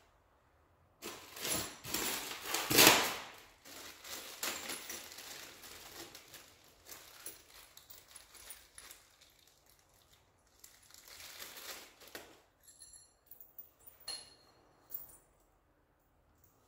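Handling noise: rustling and scraping, loudest about three seconds in, then scattered light clicks and a few small metallic clinks near the end.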